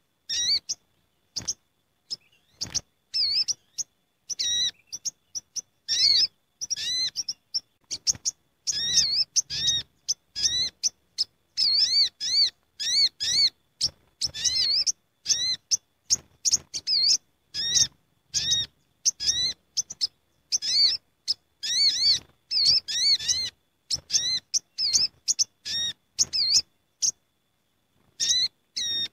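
A flock of olive-backed sunbirds (sogok ontong) calling together: rapid, high chirps that flick up and down in quick bursts. The calling is sparse at first, then a busy, noisy chorus, with a brief pause near the end. This is the sound of sunbirds gathered together, used as a lure call to draw sunbirds in.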